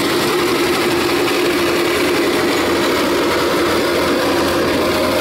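Kubota DC-93 combine harvester running close by as it cuts and threshes rice: a loud, steady machine drone with a hum whose pitch steps higher near the end.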